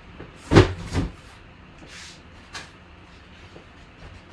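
Two thuds about half a second apart, starting about half a second in, with a fainter click a little later: items being handled and put back down on a table.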